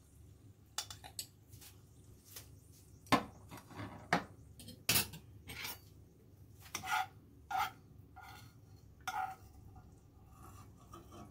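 Kitchen utensils and dishes knocking and clinking: about a dozen irregular taps, some with a short metallic or ceramic ring.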